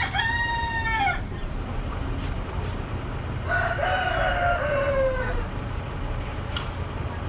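A rooster crowing twice, each crow a long held call that falls in pitch at the end, the second about three seconds after the first. A steady low hum runs underneath.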